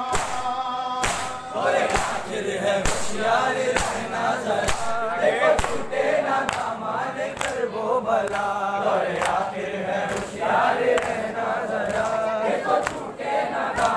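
Men's voices chanting a nauha (Shia lament) together, kept in time by chest-beating (matam): hand slaps on bare chests about once a second.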